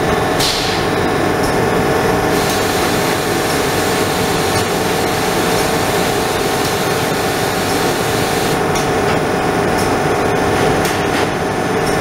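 Trumpf L2530 4 kW laser cutting machine running while it cuts sheet metal: a loud, steady hum with a hiss over it and a few steady tones. From about eight and a half seconds in, short sharp ticks are heard over the noise.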